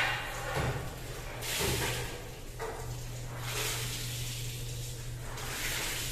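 Water from a hose splashing onto a tiled floor as a cotton string mop head is rinsed and squeezed by hand, coming in surges about every two seconds, with a couple of dull thumps near the start.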